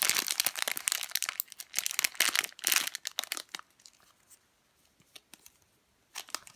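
Plastic squishy packaging crinkling as it is handled, a dense crackle for about three and a half seconds, then mostly quiet with a few light ticks and a little more crinkling near the end.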